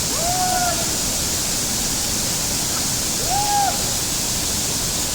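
Waterfall rushing steadily. Two brief calls that rise and fall in pitch cut through it, one at the start and one about three seconds in.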